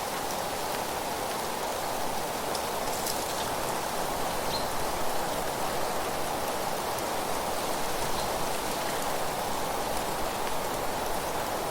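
Steady wind with rustling dry leaves: an even, rain-like hiss with a few faint high ticks.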